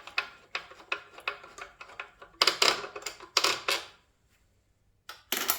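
Metal tool and bolt clinking and scraping against the engine as a loosened bolt is undone by hand, in irregular clicks with a louder run of knocks about two and a half seconds in, a pause, then a brief clatter near the end.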